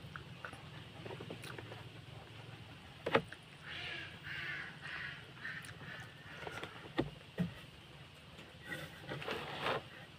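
Close-up chewing and mouth sounds of someone eating grilled barbecue meat, in two stretches, with a few sharp clicks, over a low steady hum.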